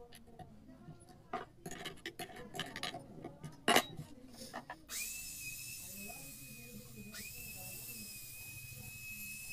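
Light clicks and knocks of wood and small metal pins being handled, with one sharp knock about four seconds in. About five seconds in, a circular saw starts and runs with a steady high whine and hiss, dipping for a moment and picking up again about two seconds later.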